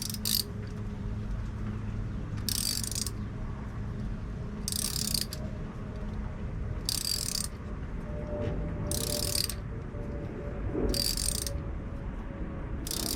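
Socket ratchet clicking in short runs about every two seconds, six times, as it backs off a rocker arm nut on a Chevy 305 small block in half-turn strokes to free a bent pushrod.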